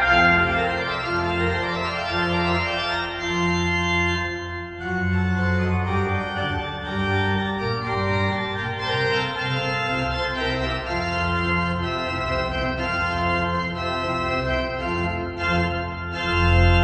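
Organ music: sustained chords over a bass line that changes note about once a second, swelling to a loud, deep chord near the end.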